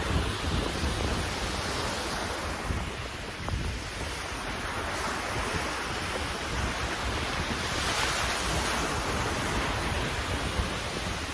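Sea waves washing in, swelling and fading every few seconds, with wind rumbling on the microphone.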